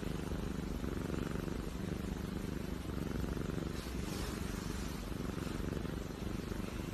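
Calico cat purring steadily as a hand scratches its head and cheek: the purr of a contented cat being petted.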